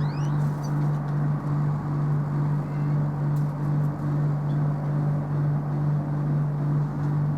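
A steady low mechanical hum, with a few short rising chirps from small birds near the start.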